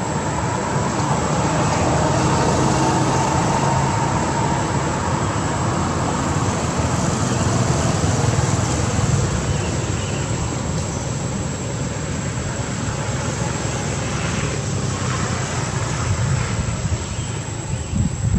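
Steady road traffic noise, a little louder in the first few seconds, with a faint constant high-pitched whine on top.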